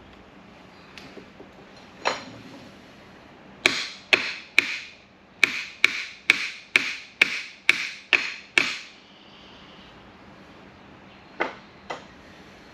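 Hammer blows: a single strike, then a run of about eleven strikes at roughly two a second, each with a short ringing tail, then two lighter taps near the end.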